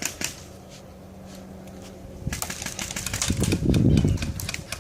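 Airsoft guns firing: a few clicking shots at the start, then dense rapid-fire clicking from about halfway until near the end, with a low rumble under it.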